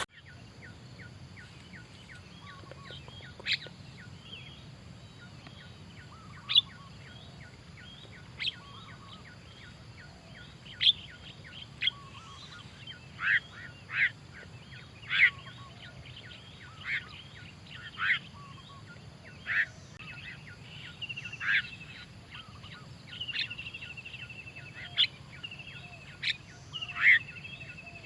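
Starlings calling: loud, sharp single calls roughly every second or two. From about two-thirds of the way through, a repeated buzzy trill joins them. A faint low hum runs underneath.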